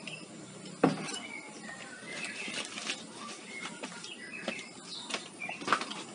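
Small birds chirping, with a sharp knock about a second in and a few lighter clicks.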